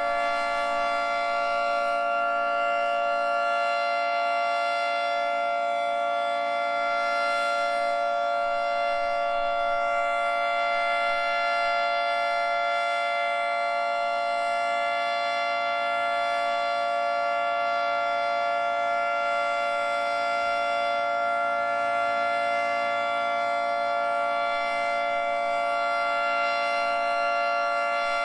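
Federal Signal 2T22 dual-tone outdoor warning siren sounding its Alert signal: one steady, unwavering chord held at constant pitch.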